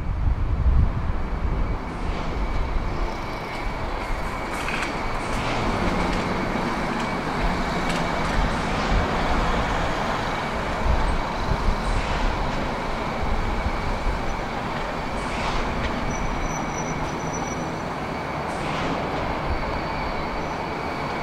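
Steady city street traffic noise, with a faint high tone held throughout and a few light clicks spaced a few seconds apart.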